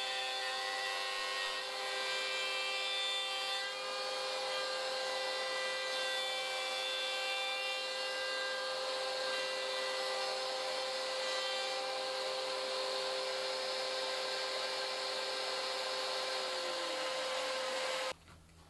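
DeWalt trim router with a guide bush running steadily as it cuts a dog hole through Baltic birch plywood against a template, with dust extraction drawing through the hole. Near the end one of the motor tones winds down in pitch, and then the sound stops abruptly.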